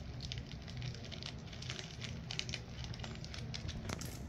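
Plastic snack wrapper crinkling as it is handled and pulled open by hand: a quick, irregular run of small crackles.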